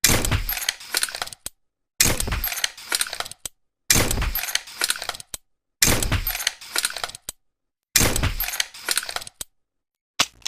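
Tranquilizer pistol sound effect: a sharp shot followed by a rattle of small clicks. It is played five times about two seconds apart, with a brief sixth fragment near the end.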